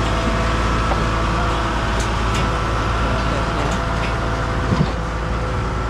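The engine of a large pumpkin harvesting machine running steadily with a low hum, with a few short knocks over it.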